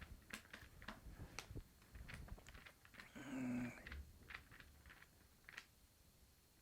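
Faint rustling and soft scattered clicks of thin Bible pages being leafed through, with a brief quiet murmur a little after three seconds in.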